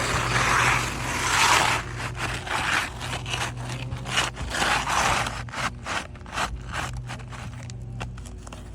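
A metal roofing tool scraping and prying under asphalt shingles to work nails loose. Two long scrapes come in the first two seconds, followed by a string of short scrapes and clicks.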